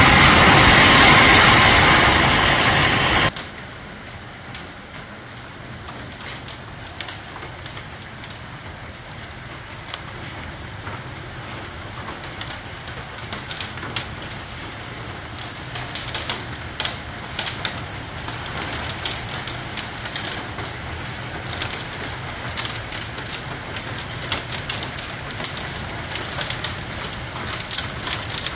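Hail and heavy rain pelting a roof: a loud, dense hiss that drops off abruptly about three seconds in. It gives way to a quieter patter of rain with scattered sharp ticks, which grows denser in the second half.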